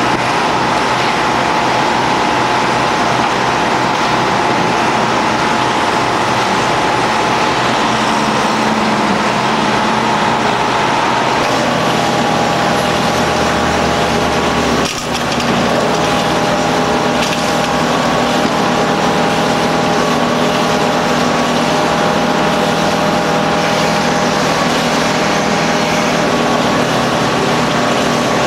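Auger piling rig running steadily as it bores a pile, its engine and auger drive making a continuous mechanical drone with steady tones. The pitch shifts about a third of the way in, and the sound dips briefly around the middle.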